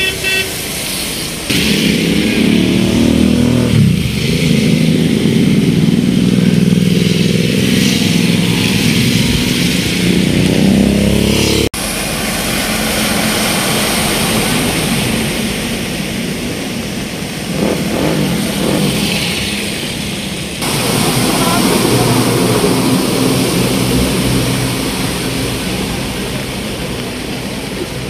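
Road traffic: vehicle engines running with general street noise. A steady low engine drone is loudest for most of the first ten seconds, and the sound changes abruptly about a third and two-thirds of the way through.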